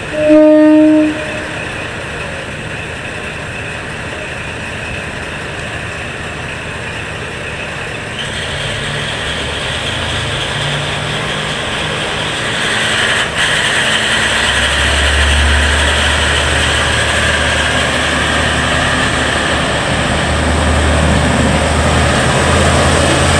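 KiHa 40-series diesel railcar sounding one short horn blast, then its diesel engine running. The engine rises into a heavy low rumble a little past halfway as the train pulls out along the platform.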